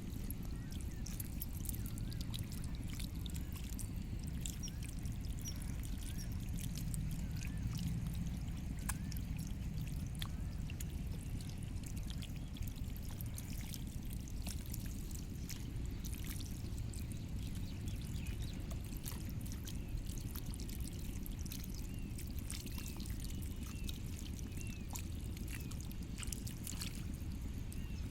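Water running and pouring steadily, with small splashes and clicks throughout and faint bird chirps now and then.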